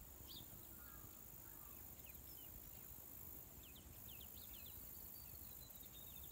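Grey warbler singing faintly: thin, high wavering notes that build into a quavering trill in the second half, over a faint steady high hiss.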